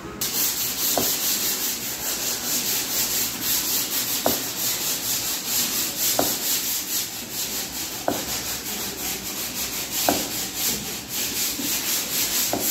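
Chef's knife cutting a carrot on a plastic cutting board: quick repeated strokes heard as a steady rasping scrape, with a sharper tick about every two seconds.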